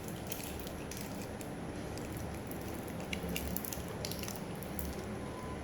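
Faint, scattered light clicks and taps from a metal watch bracelet being handled, over a steady background hum.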